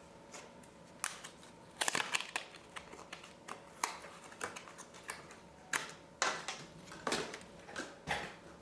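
Irregular light clicks, taps and short scrapes of small hard parts being handled by hand, as a laptop hard drive and its mounting bracket are worked on.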